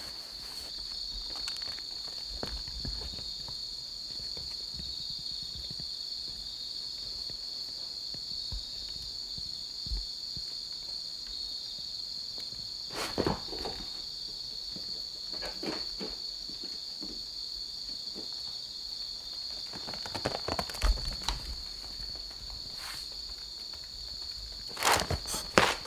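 Steady high-pitched chirring of insects, with a few soft scuffs and taps of cats' paws on tatami and wicker, about halfway through and again near the end.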